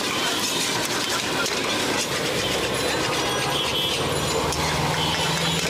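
Long metal spatula clattering and scraping against a steel wok as noodles are stir-fried, a rapid run of small metallic clicks over steady noise. About four seconds in, a vehicle engine running close by adds a low hum.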